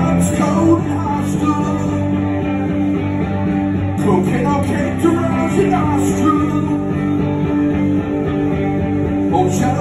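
Rock band playing live, two electric guitars over bass guitar and drums, with loud, steady sustained bass notes and cymbal crashes.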